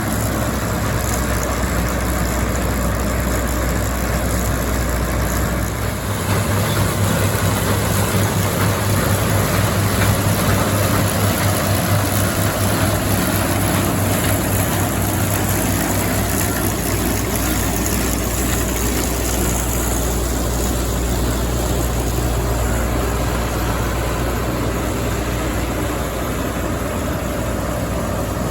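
Combine harvester running steadily, a continuous machine drone that gets a little louder and deeper-toned about six seconds in.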